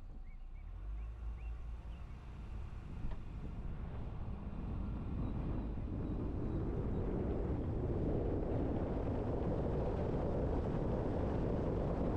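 Car driving, with steady tyre and road noise that builds up from about four seconds in and then holds steady, as of a car gathering speed.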